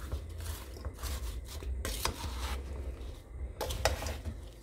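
Wooden spoon stirring chunks of raw pumpkin, grated fresh coconut and sugar in a pot: a run of irregular rustling, scraping strokes.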